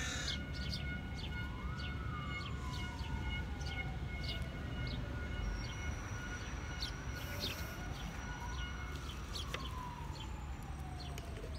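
A siren wailing slowly: its pitch rises and falls twice, each cycle about five seconds long, with short bird chirps over it.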